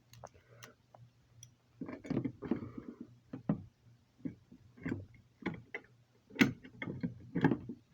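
Irregular clicks and knocks of fire alarm equipment being handled and set up, over a faint steady low hum.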